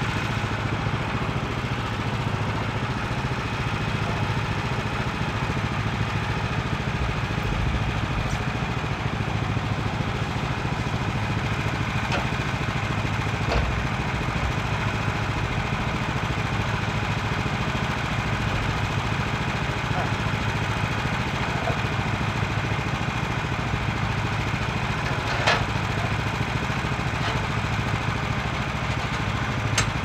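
Small gas engine of a Woodland Mills HM126 portable bandsaw mill idling steadily, with a few light clicks and knocks as the log is handled on the mill bed.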